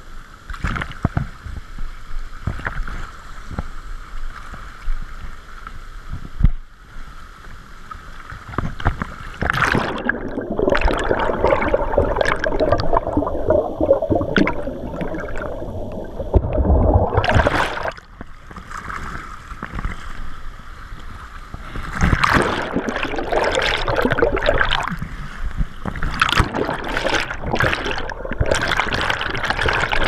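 Churning whitewater with gurgling, rushing and splashing around a kayak-mounted camera that goes under the aerated water. The sound grows much louder about ten seconds in, drops off briefly around eighteen seconds, and surges again from about twenty-two seconds.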